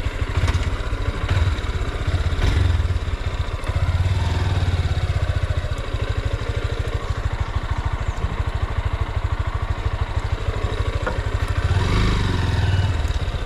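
Honda CB motorcycle engine idling with a steady, even beat, swelling a little fuller a couple of times.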